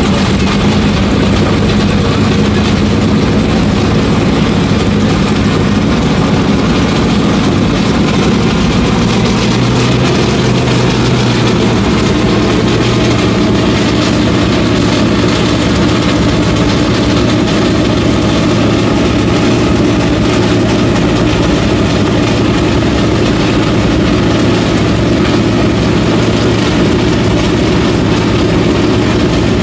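Dirt late model race car's carbureted V8 engine idling steadily, its speed lifting slightly about ten seconds in.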